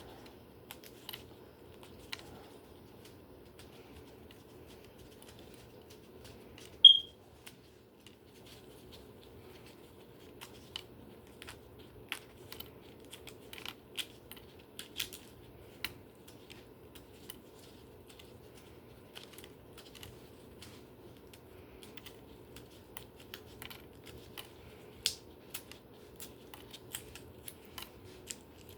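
Knife tapping and clicking irregularly on a cutting board while dicing hard-boiled eggs, with one loud, sharp clink about seven seconds in. A faint steady hum runs underneath.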